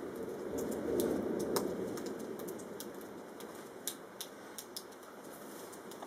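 Thunder rumbling in the distance, swelling about a second in and then slowly dying away, with scattered sharp ticks over it.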